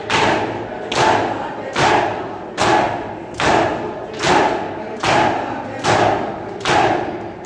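Crowd of Shia mourners doing matam: many hands striking chests together in a steady rhythm, about ten loud beats a little under a second apart. After each beat the crowd's voices swell and fade.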